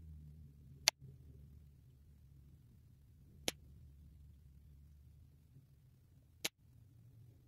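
Three sharp cracks from a low-powered .25-calibre Reximex Daystar PCP air rifle shooting pellets at a paper target, spaced about two and a half to three seconds apart, the first the loudest.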